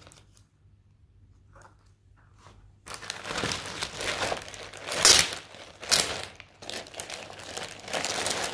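Clear plastic packaging bag crinkling as it is picked up and handled, starting about three seconds in, with a couple of louder rustles in the middle.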